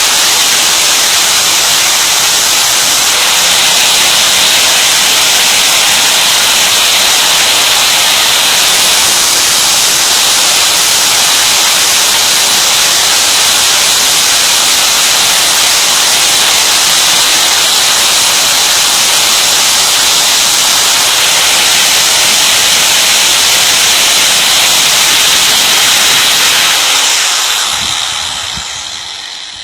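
Drill bit being ground against a spinning abrasive wheel: a loud, steady, hissing grinding noise. It fades away over the last couple of seconds.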